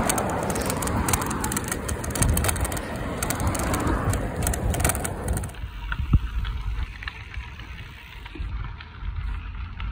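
Route Werks handlebar bag jiggling and rattling on its quick-release mount as a bicycle rolls over concrete pavement, a dense clatter of knocks ('crunk, crunk, crunk' over the cracks) along with tyre noise. The jiggle comes from play in the bag's mount. A little over halfway through, the sound cuts to quieter rumbling on gravel with only a few knocks.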